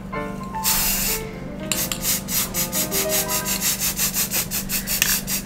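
Aerosol can of Rust-Oleum Painter's Touch 2X Ultra Cover primer: a short spray hiss about a second in, then the can being shaken hard, rattling about five times a second.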